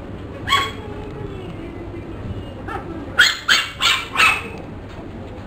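Puppy yapping: one high yelp about half a second in, then a quick run of four sharp yaps a little past halfway.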